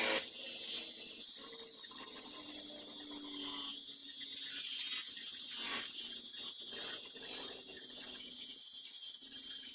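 Electric arc welding on pipe: a steady, high-pitched sizzle from the arc.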